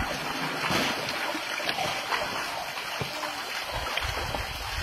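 Water gushing and splashing out of a large bag-bucket, drawn up from a well by rope and pulley, as it is tipped out onto a stone trough.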